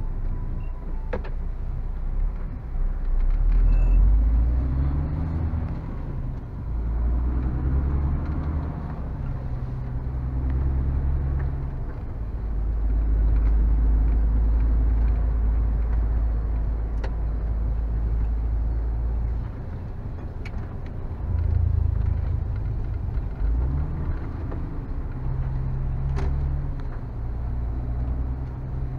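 Diesel lorry engine running, heard from inside the cab, its pitch rising and falling several times as the lorry accelerates and slows.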